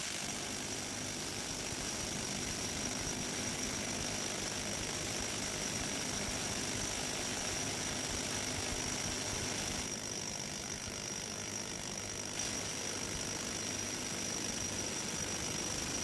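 TMG impact wrench hammering continuously against a bolt-tension tester: a dense, steady buzzing rattle with a constant high whine, easing slightly for a couple of seconds about ten seconds in.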